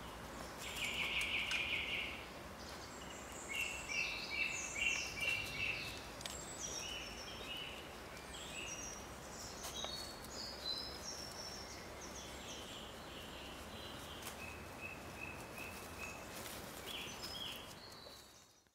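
Woodland birdsong: several birds giving short chirps and repeated trills over a steady background hiss, fading out at the end.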